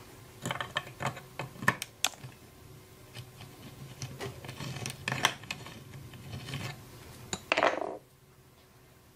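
Hand tool scraping and clicking in the bore of a small steel gear held in a vise, finishing the hole. Irregular sharp metal clicks and short scrapes, with a longer scrape near the end before it stops.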